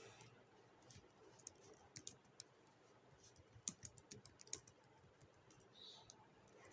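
Faint, irregular light clicks over near silence, a few sharper ones in the middle.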